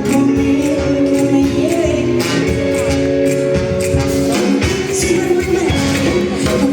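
Live band music: sustained notes over a steady beat of shaken, tambourine-like percussion, with singing.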